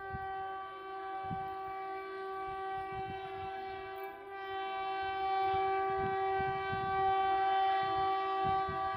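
Air horn of an approaching WAP-4 electric locomotive sounding one long, steady held note, growing louder about halfway through as the train nears.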